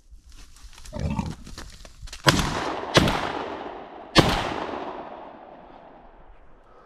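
Three gunshots from a hunting gun, the first two less than a second apart and the third just over a second later. Each is followed by a long echo that fades away.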